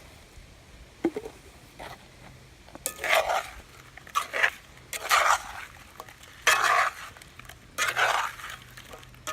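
A cooking utensil stirring and scraping frying apples around a pan, five strokes about a second and a half apart, after a single light click about a second in.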